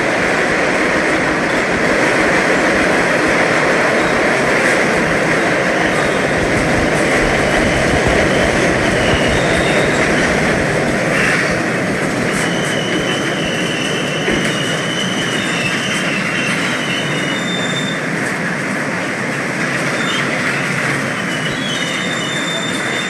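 MBTA Orange Line subway train running on the rails with a steady rumble, its wheels squealing in thin high tones through the second half.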